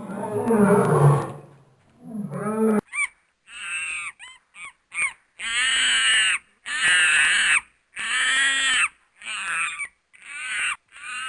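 An animal calling: a low, rough call at the start, then a run of about eight separate pitched calls, the middle three each about a second long.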